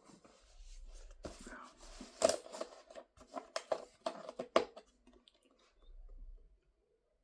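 A series of short clicks and rustles, like something being handled in a small room, bunched about one to five seconds in.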